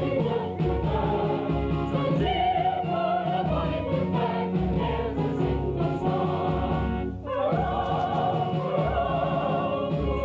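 Background music with a choir singing over instrumental accompaniment, with a short break about seven seconds in.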